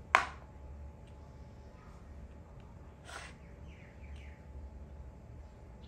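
A makruk piece set down on the board with a sharp click, then a softer knock about three seconds in as another piece is placed.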